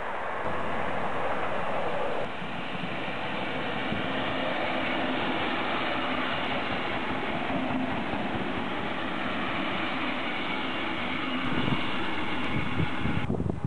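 Passenger train coaches rolling past close by: a steady rushing rumble of wheels on the rails. The sound changes abruptly about two seconds in and again near the end.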